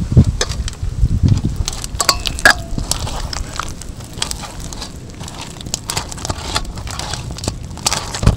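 A hand kneading thick palm-fruit pulp batter in a stainless steel bowl: irregular wet squelches and squishes as the fingers work the batter against the steel.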